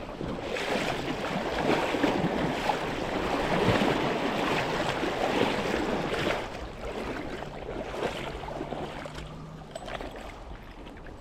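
Creek water rushing and splashing, louder for about the first six seconds and then easing off.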